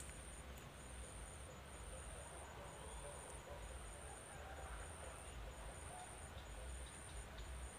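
Faint insect chirping, high-pitched, in even pulses about once a second, over a fainter steady high trill.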